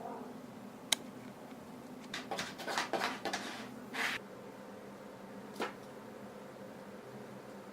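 A sharp click, then about two seconds of rustling and scraping clicks, then another single click, over a steady low room hum.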